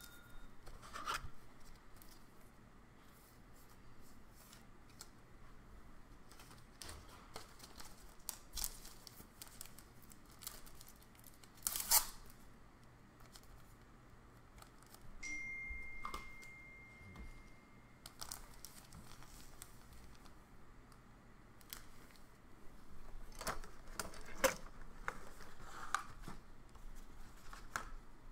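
Soccer trading cards being handled in plastic sleeves and top loaders: rustling and crinkling of plastic, with scattered clicks and taps, the sharpest about halfway through. A faint steady high beep sounds for about three seconds just past the middle.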